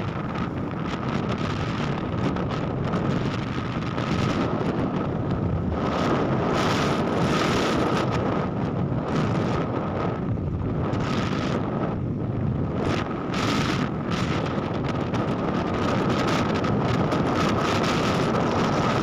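Motorcycle riding at road speed: wind buffets the microphone in gusts over steady engine and road noise, with a faint steady high whine throughout.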